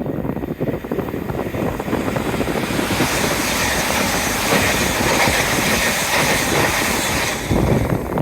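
Express train passing at speed on a main line: a loud rush of wheel and air noise that grows brighter about three seconds in, with a louder surge near the end, and wind on the microphone.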